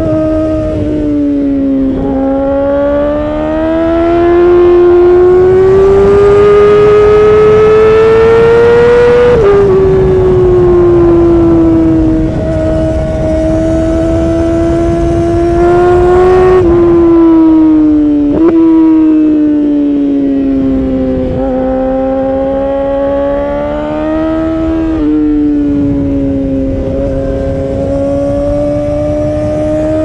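2019 Yamaha R6's inline-four engine through an Akrapovic Evolution Racing exhaust, running at high revs while riding. The pitch climbs and falls with the throttle, and drops sharply at upshifts about nine and seventeen seconds in.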